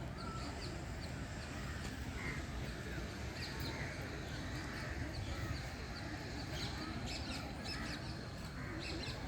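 Many birds chirping in quick, scattered short calls, over a steady low background rumble.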